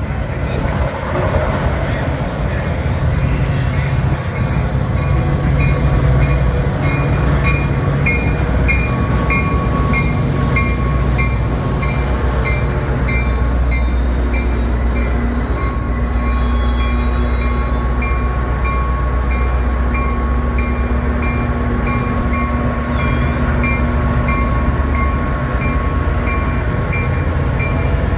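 Train passing on the line: a diesel locomotive's low rumble and the cars rolling by. From about eight seconds in there is a steady clicking of wheels, about two a second.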